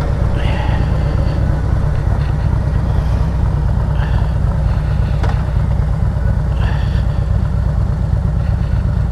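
Harley-Davidson Road Glide Special's V-twin engine running steadily on the move, with no change in pitch.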